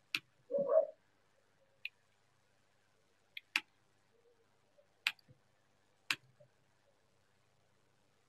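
Computer mouse clicks, about six sharp single clicks a second or two apart (one a quick double), advancing the slide animations. A short, muffled, mid-pitched sound comes about half a second in.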